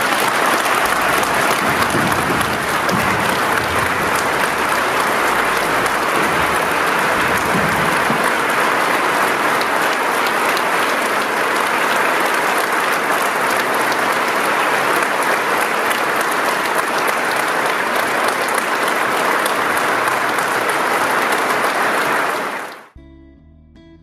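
Large audience applauding, a dense, steady clapping that cuts off abruptly near the end, leaving faint guitar music.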